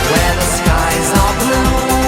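Background music: a pop song with a steady beat.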